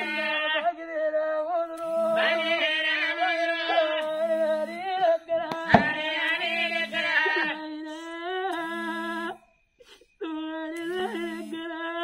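A solo voice singing long, drawn-out, wavering notes in Oggu Katha folk narrative style, with a short low accompanying note recurring about every two seconds. A sharp click sounds about halfway through, and the singing breaks off briefly twice near the end.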